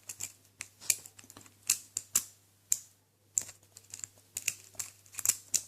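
Small metal lock picks and the padlock being handled, giving quick, irregular light clicks and taps, with a brief pause about halfway through.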